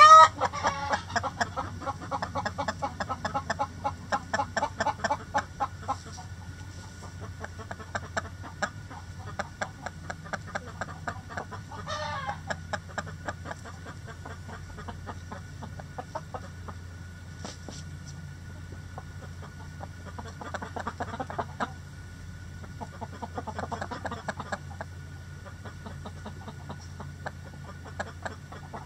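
Backyard chickens clucking. A loud squawk comes right at the start, then a fast run of short clucks for about six seconds, with more scattered clucking and a couple of bursts later on.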